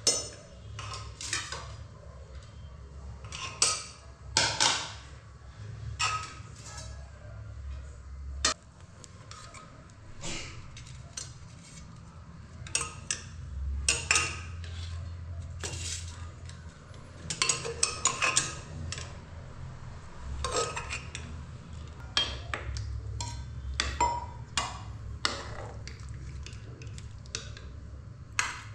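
Spoons and utensils clinking and scraping against metal plates and pots as a meal is dished up and eaten. The clinks come irregularly, sometimes several in quick succession.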